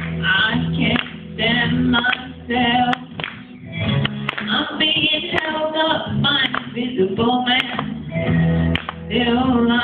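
A young boy singing a pop-rock ballad over a backing track.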